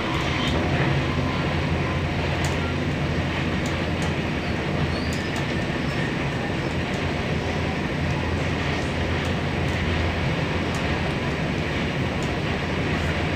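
Passenger train running steadily at speed, heard from inside the carriage, with a few faint clicks over the even running noise.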